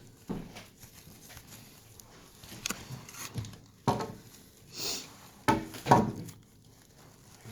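Handling noise from a packaged item being worked open by hand: a series of light knocks and bumps, a short rustle, then two louder scraping squeaks near the end.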